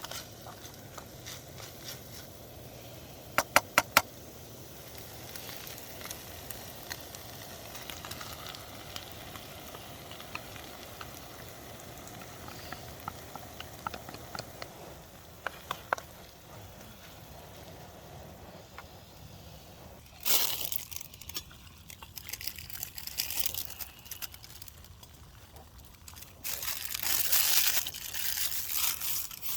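Food sizzling steadily in a pan on a camp stove, with a quick run of sharp clicks early on and louder stretches of scraping noise about twenty seconds in and again near the end.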